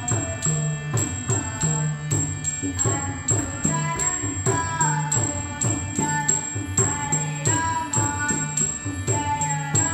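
Live Yakshagana accompaniment: a sung melody over a steady harmonium drone, with regular strokes of a maddale barrel drum keeping the dance rhythm.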